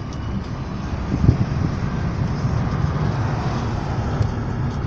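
Road noise of a moving car heard from inside the cabin: a steady low rumble of tyres and engine, with a brief thump about a second in.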